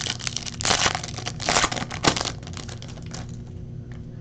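Foil card-pack wrappers crinkling and rustling as packs of baseball cards are handled and opened, with small clicks and taps of the cards. A few louder crinkles come about a second in, again around the middle, then it settles to lighter handling.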